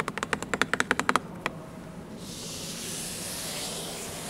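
Small clip-on microphone being handled: a quick run of about a dozen sharp clicks over the first second and a half, then a steady rustling hiss from about two seconds in.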